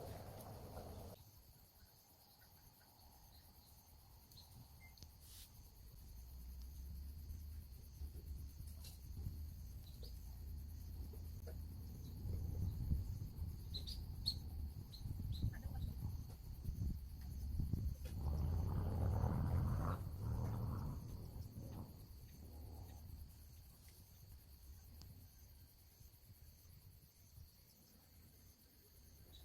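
Crickets chirping steadily in a continuous pulsing trill, under a low rumble that builds toward the middle and is loudest a little past two-thirds of the way in before fading.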